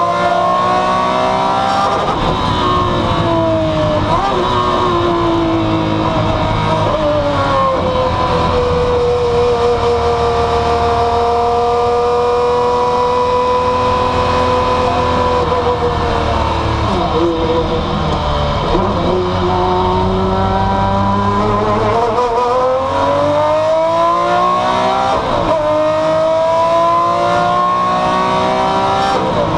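Maserati MC12 Corsa's V12 engine at full racing revs, heard from inside the cockpit, its pitch climbing through the gears. A long stretch of steady high pitch sits in the middle, then the revs drop sharply with downshifts around two-thirds of the way through before it screams back up through the gears near the end.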